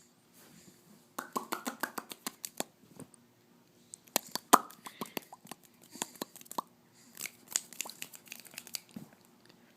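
An irregular series of short, sharp clicks and pops, coming in clusters of several a second with brief pauses between them.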